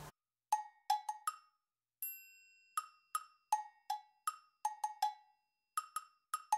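Background music of wood-block taps: a playful pattern of hollow knocks at two pitches, about two to three a second, with a single bell-like chime about two seconds in.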